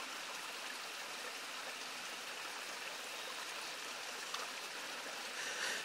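Steady hiss of running water flowing through the canyon.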